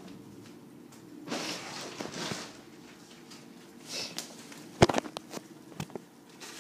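Footsteps and rustling on a tile floor as a cardboard box is carried to the doorway, with a sharp knock just before five seconds in and a few lighter clicks after it.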